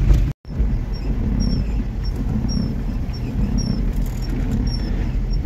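Car driving in fourth gear on a muddy dirt road: a steady low rumble of engine and tyres, with short high squeaks about once a second. The sound cuts out completely for a moment just after the start.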